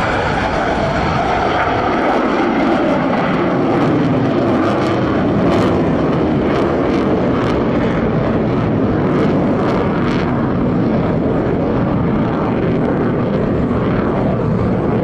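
Jet noise from an F-22 Raptor's twin Pratt & Whitney F119 afterburning turbofans as it climbs steeply away after takeoff: a loud, steady rumble with crackling through the middle seconds.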